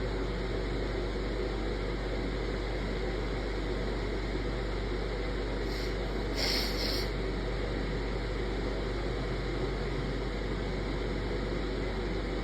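Steady background hiss with a low electrical hum. About six seconds in there is one short, breathy hiss lasting under a second.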